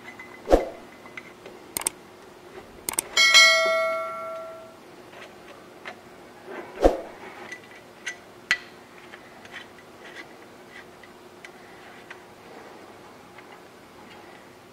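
Small metal clinks and taps as chainring bolts, a hex key and an aluminium chainring are handled while the bolts are fitted to the crank. About three seconds in, one clink rings on like a small bell for over a second.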